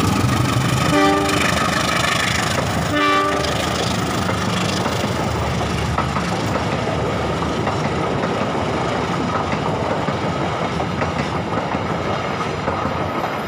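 A CC203 diesel-electric locomotive running past close by, sounding its horn in two short blasts about a second and three seconds in. Its passenger coaches then roll past with steady wheel-and-rail rumble and occasional clicks over the rail joints.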